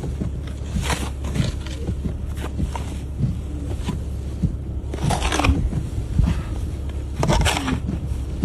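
Snow crunching in irregular strokes, the strongest about five and seven and a half seconds in, over a steady low rumble.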